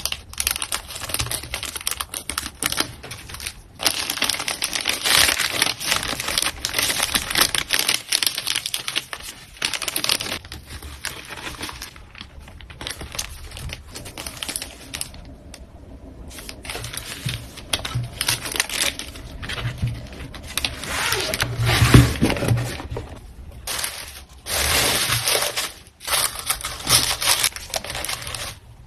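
Packing materials being handled: crinkling and rustling mixed with quick taps and clicks, with a short pause midway and a single louder knock a little past the two-thirds point.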